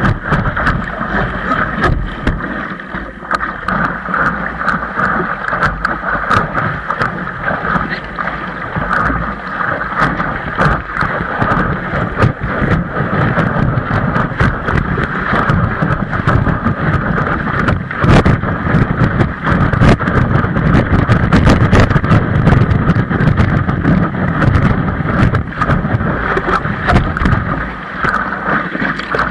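Wind buffeting the microphone over a continuous hissing, crackling glide noise from a windsurf board on the move. The low rumble swells for several seconds past the middle.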